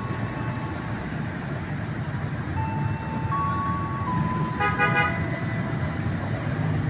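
Diesel locomotive rumbling as it approaches, with one short horn blast about four and a half seconds in, over a simple tune of single held notes stepping from pitch to pitch.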